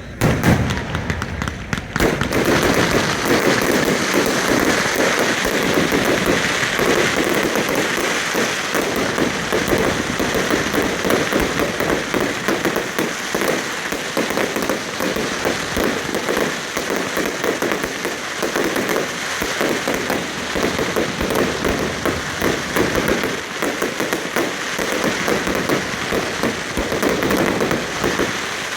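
Aerial fireworks: a loud bang right at the start, then a dense, continuous crackling of many small pops, like heavy rain, that keeps going.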